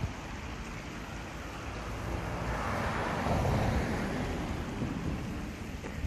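Wind buffeting the microphone outdoors, with a rushing swell that builds and fades about halfway through.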